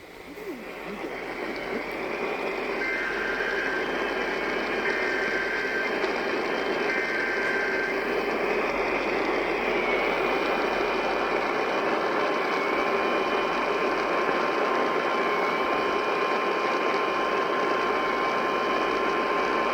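Emergency Alert System alert received on AM radio through heavy static. The SAME data header sounds as three short bursts of two-tone warbling a couple of seconds apart, followed about four seconds later by a long steady attention tone.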